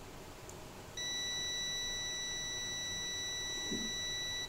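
Digital multimeter's continuity buzzer sounding one steady, high beep that starts about a second in and cuts off suddenly near the end. It sounds while the probes across a capacitor read near 0 ohms, the sign of a possible short.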